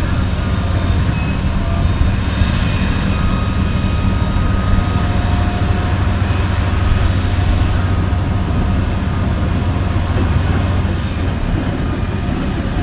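Heavy diesel engine running at a steady idle, a deep, even drone that eases slightly near the end.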